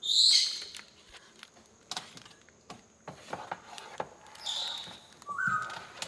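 Harlequin macaw moving about inside a plastic pet carrier: scattered taps and scrapes of beak and claws on the plastic. A loud hissing rustle comes at the start, another about three-quarters of the way through, and a short rising squeak just before the end.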